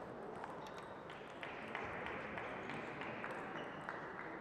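Table tennis balls clicking off bats and the table, short sharp clicks at irregular spacing, several a second, over steady background noise.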